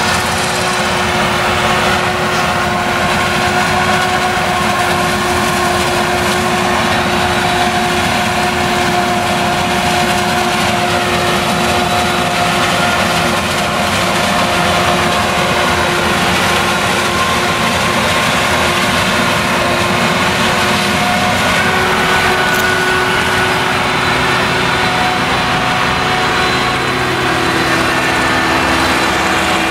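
Claas Jaguar 970 self-propelled forage harvester chopping maize, its MAN V8 engine running steadily under load, with a steady whine through it.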